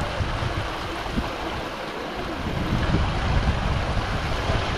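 Water rushing at a hot-spring waterfall, with wind rumbling unevenly on the microphone.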